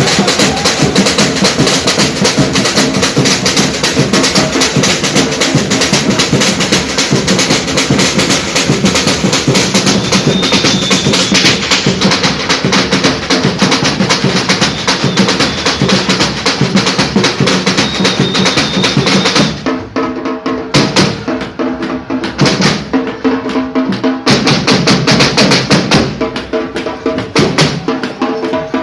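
Batucada samba percussion ensemble playing a fast, dense drum groove. About two-thirds of the way through, the bright high rattling layer drops out, leaving the drums playing alone in sharper, more broken accents.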